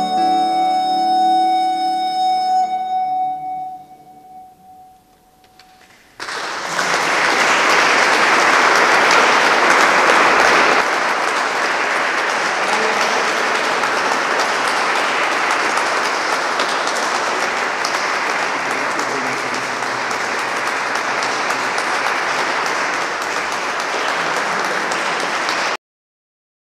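The last note of a recorder and classical guitar duo dies away, one tone ringing on faintly. About six seconds in, audience applause begins, steady and sustained, and it cuts off suddenly near the end.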